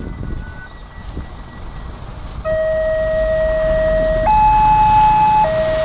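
Level-crossing warning alarm starting about two and a half seconds in: a loud electronic tone switching between a lower and a higher pitch, the low note held about two seconds and the high one about one, signalling an approaching train. Before it, road traffic rumbles over the crossing.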